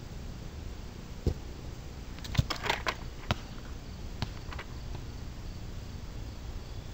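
Outdoor background noise with a faint, steady, high insect drone and a few sharp clicks and knocks scattered between about one and five seconds in.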